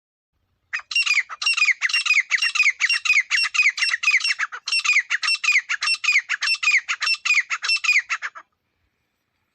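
Teetar (francolin) calling loudly: a fast run of short notes, each sliding down in pitch, about four to five a second. It starts about a second in, pauses briefly midway and stops about a second before the end.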